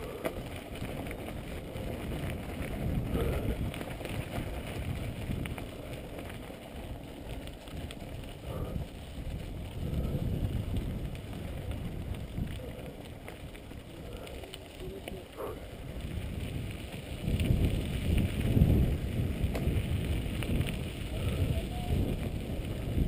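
Mountain bike rolling along a dirt track: an uneven low rumble of tyres on dirt and wind on the action-camera microphone, louder for a few seconds near the end.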